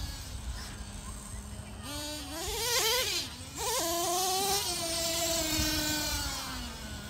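Motor of a radio-controlled monster truck whining under throttle. The pitch holds low, surges up and down twice about two to three seconds in, drops out for a moment, then jumps up and holds before sliding back down toward the end.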